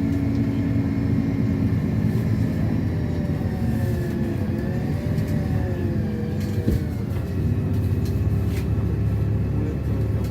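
LiAZ-6213 articulated city bus heard from inside the cabin while driving: a steady engine and drivetrain hum whose pitch dips and rises around the middle, then settles into a lower hum. There is a single small click shortly before the change.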